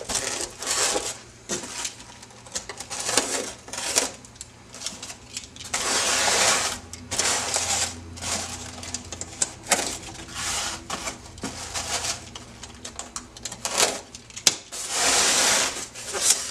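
Packaging being handled during an unboxing: irregular rustling and scraping of plastic trays and wrapping, with small clicks and clatters of parts, and a longer scrape near the end.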